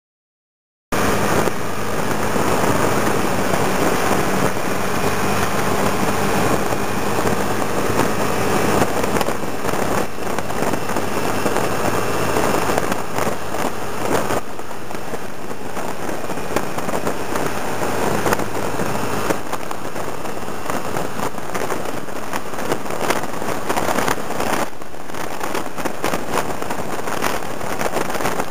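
Motor scooter riding along a road: wind rushing and buffeting over the microphone over the steady hum of the scooter's engine, cutting in suddenly about a second in.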